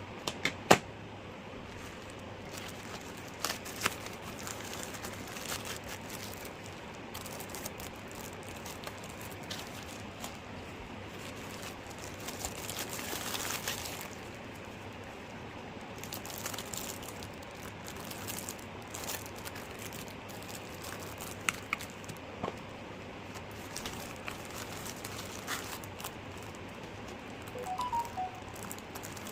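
Packaging being handled and opened: crinkling and tearing, with scattered sharp clicks and taps over a steady hiss, busiest about halfway through.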